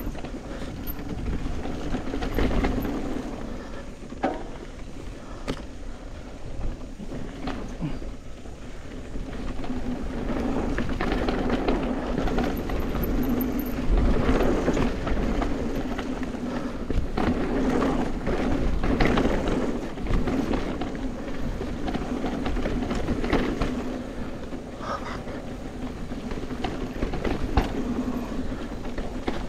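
Bicycle on the move: steady tyre and road noise with scattered rattles and knocks.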